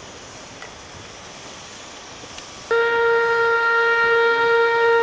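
Paddle steamer's steam whistle sounding one long steady blast, starting sharply about two and a half seconds in, after a steady background of noise.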